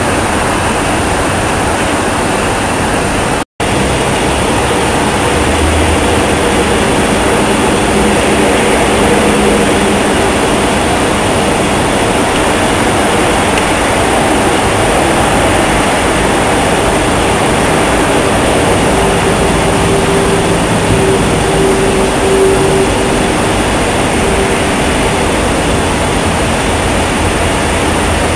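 Loud, steady rushing noise, like heavily amplified hiss, with a thin high-pitched whine over it. It cuts out for a moment about three and a half seconds in.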